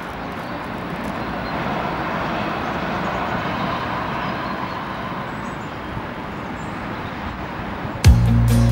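A steady, even rushing background noise, like outdoor ambience, swells in and holds. About eight seconds in, the song's music starts loudly with a deep bass tone and sharp percussive clicks.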